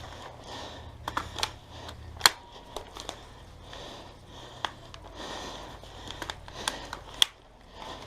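Scattered sharp snaps of airsoft guns firing, about a dozen irregular shots, the loudest a little over two seconds in, with a soft rustle between them.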